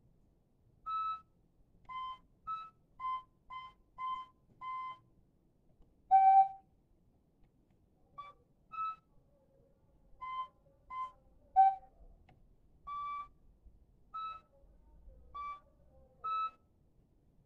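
Digital keyboard played one note at a time: a slow, halting melody of short, separate notes with small gaps between phrases. A louder, lower note comes about six seconds in.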